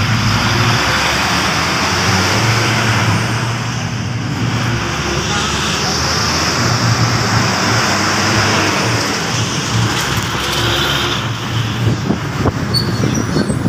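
Engine drone and road noise from inside an open-sided passenger vehicle driving through city traffic: a low engine hum that swells and eases every few seconds under a steady rush of traffic.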